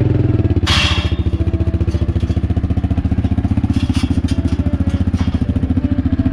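ATV engine running steadily, close by, with a fast, even putter. A brief clatter comes about a second in.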